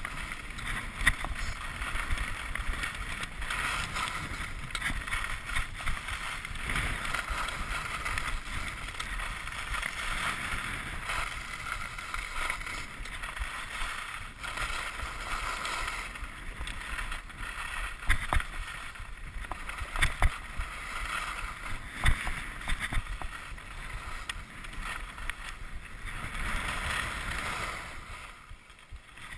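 Skis scraping and carving on hard-packed groomed snow, a steady hiss with a few sharp knocks along the way. It quiets near the end as the skier slows to a stop.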